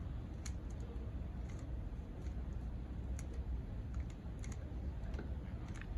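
3x3 Rubik's cube being turned quickly by hand in a timed solve: a run of small, irregular plastic clicks and snaps.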